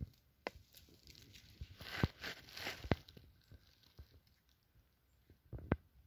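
Dry pine needles and forest-floor litter rustling and crackling as a fly agaric mushroom is dug out and picked by hand, with a few short sharp snaps and clicks, two in quick succession near the end.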